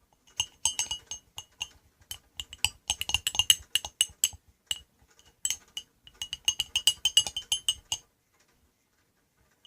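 A spoon clinking rapidly against the sides of a cup while stirring a cornstarch slime mixture, in quick irregular runs that stop about eight seconds in.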